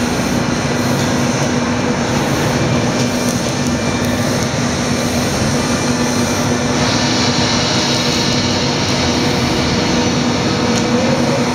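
Fire tornado exhibit running: a spinning column of gas flame burning with a steady rushing noise over a low, even hum. A little over halfway through the hiss turns brighter.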